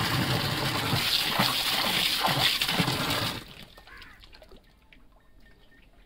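Water gushing from an opened tap beside a concrete cattle trough, stopping abruptly about three seconds in.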